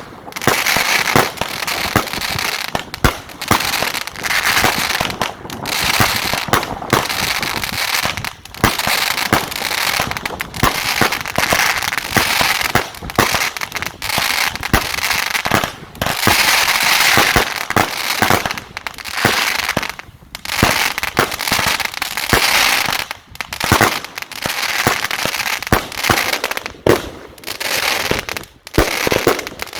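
A 49-shot, 25 mm consumer fireworks battery cake firing shot after shot for the whole stretch: sharp launch bangs from its gold mine effects, with stretches of crackling between them.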